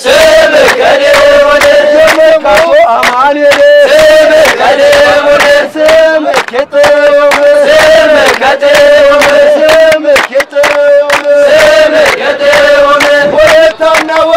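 A group of young men chanting an Ethiopian Orthodox hymn (mezmur) in unison, holding one steady note in long lines, with regular handclaps keeping the beat.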